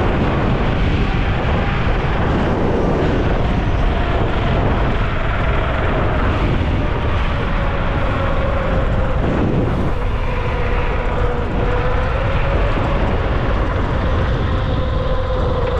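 Nami Burn-E electric scooter riding at speed: heavy wind noise over the microphone with a steady whine from its motors, the whine sinking slowly in pitch.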